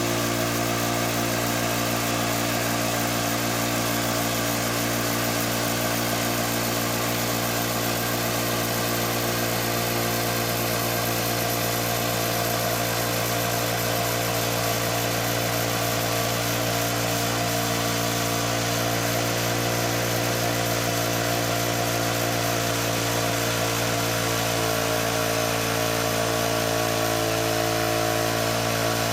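Woodland Mills HM126 portable band sawmill's gas engine running steadily at a constant speed, with the band blade turning.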